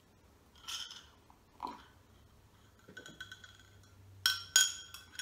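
Metal spoon stirring in a glass of cappuccino, clinking against the glass with a ringing tone; two sharp clinks near the end are the loudest. A couple of softer knocks come in the first two seconds.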